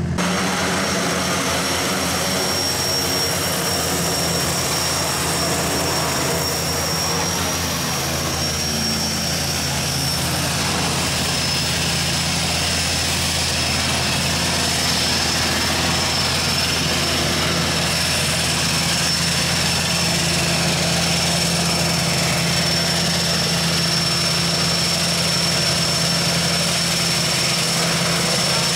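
Twin-engine turboprop jump plane running on the ground: a steady engine and propeller noise with a low hum and a steady high turbine whine.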